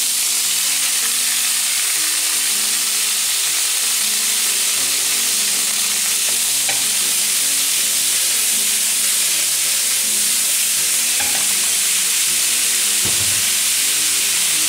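Halved cherry tomatoes sizzling in hot olive oil in a frying pan: a loud, steady frying hiss that sets in as they hit the oil.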